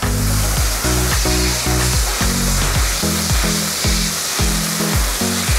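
Upbeat background music with a steady beat, over a loud, even hiss that starts abruptly and cuts off near the end.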